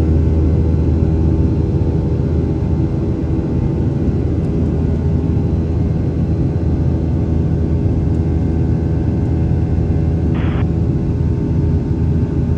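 Cabin noise of a Boeing 737-900ER's CFM56-7B turbofan engines in the climb after takeoff, heard from a window seat beside the engine: a steady low rumble with several steady hums on top. A brief burst of radio static comes in near the end.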